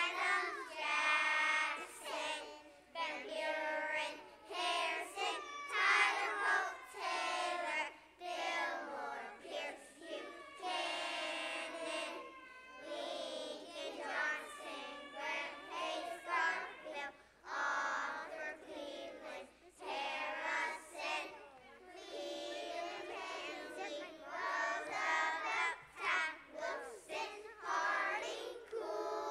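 A group of preschool children singing a song together in short phrases with brief breaks.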